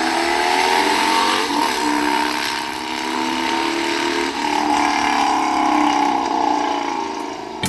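Motorcycle engine running at high revs, its pitch drifting up and down a little, easing off near the end.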